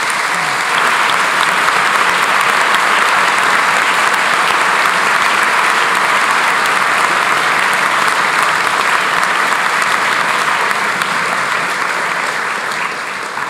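Audience applauding, steady and sustained, easing slightly near the end.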